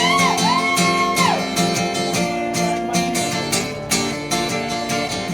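Acoustic guitar strummed in a steady rhythm. A man's sung note is held and bent at the start and dies away after about a second and a half, leaving the guitar alone.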